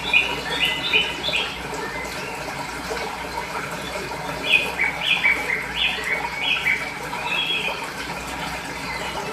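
Running water with a songbird chirping over it: a quick run of short, stepped notes near the start, and another from about halfway in.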